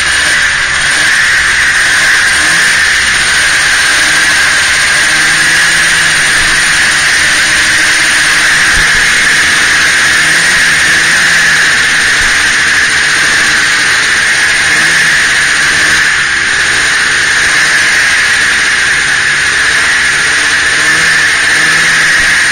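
Snowmobile engine running at a steady, moderate speed while riding, heard close up, with a loud steady high whine and wind and track noise over it. The engine pitch wavers only slightly, with no hard revving.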